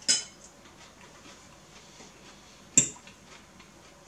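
Metal fork clinking sharply against a ceramic noodle bowl twice, nearly three seconds apart.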